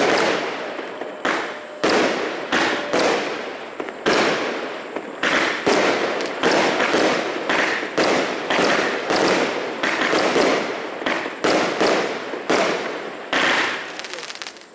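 Aerial fireworks bursting in the sky one after another, about two sharp bangs a second, each bang fading out before the next.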